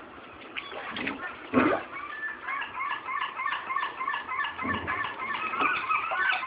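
A young gull chick giving a rapid run of short, high peeping calls, about three a second and growing louder. A single thump about a second and a half in.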